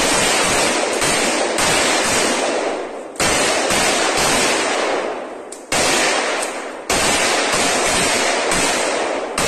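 Sustained automatic gunfire from soldiers' rifles in a forest, the noise so dense that single shots blur together. A fresh burst starts abruptly every second or two and trails off before the next.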